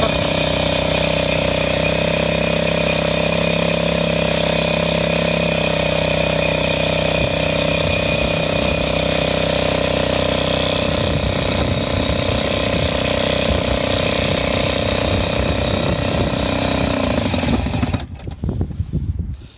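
Johnson Seahorse 4 HP two-cylinder two-stroke outboard motor running steadily, then shut off near the end, its sound dying away within about a second.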